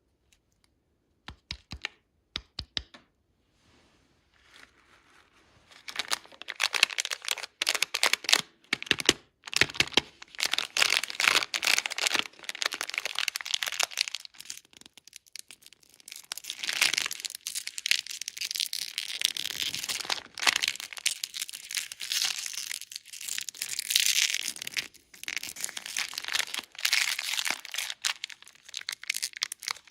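Candy wrappers being torn open and crinkled close up: a few sharp clicks after about a second, then dense crackling and crinkling from about six seconds in, with short pauses.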